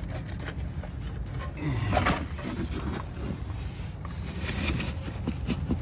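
A man grunts with effort while straining on a ratchet against a very tight caliper bridge bolt that won't break loose, with scattered clicks and knocks of the ratchet and socket.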